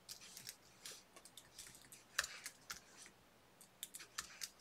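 Faint typing on a computer keyboard: scattered single key clicks at an irregular pace.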